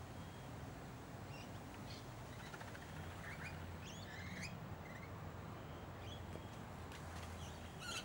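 Faint, short chirps and chatter from rainbow lorikeets feeding on the ground, scattered through, over a low steady hum.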